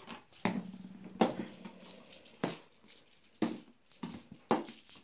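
A cat pouncing and scrambling after a feather wand toy on a hard floor: about five sharp thumps and taps, roughly a second apart.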